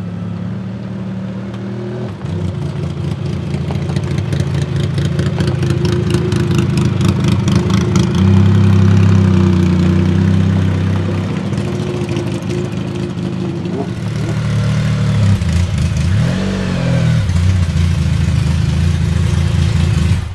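The Singer DLS Turbo's twin-turbo 3.8-litre flat-six, through its straight-piped exhaust, running at low revs as the car rolls slowly by. There is a short rev blip about three quarters of the way through.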